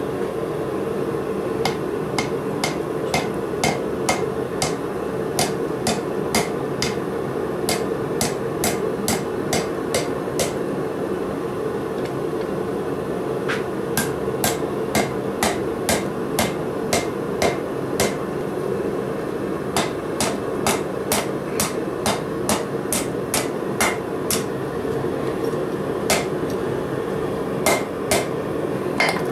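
Hammer blows on a red-hot 3/8-inch 1018 steel bar held against the anvil horn, bending it into a hook. The blows come in runs at about one to two a second, with two short pauses, over a steady background noise.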